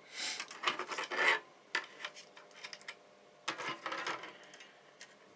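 Rubbing and scraping with a few light clicks: tools and wire being handled and rummaged through on a workbench.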